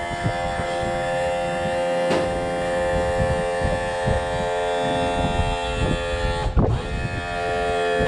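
Electric power trim/tilt motor of a Hidea 60 hp four-stroke outboard running, a steady electric hum that holds one pitch and stops at the end.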